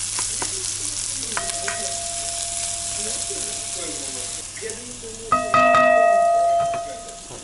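Bacon and chopped mushrooms sizzling in a frying pan while being stirred with a spatula, the sizzle dying down after about four seconds. A fainter steady tone sounds from about a second and a half in. A little after five seconds, a louder steady electronic beep from the induction hob's touch control lasts about a second and a half.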